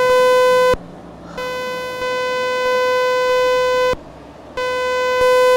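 Electromagnetic emissions from an illuminated Open sign, picked up by an EMF Explorer badge and turned into sound: a loud, steady buzzing tone that cuts out briefly twice and comes back.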